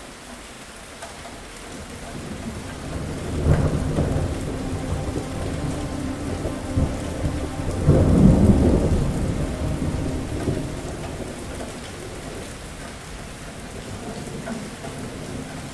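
Steady rain with a long roll of thunder: the rumble builds about three seconds in, swells to its loudest around eight seconds, and dies away over the next few seconds.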